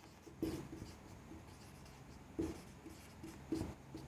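Marker pen writing on a whiteboard: a run of short pen strokes, a few of them louder than the rest, as a word is written out.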